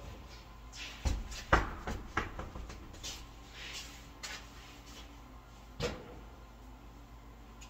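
Clunks and knocks of a mounted tire and wheel being lifted off a tire changer's turntable and handled: a cluster of hard knocks about a second in, softer scuffs, then one more clunk later on.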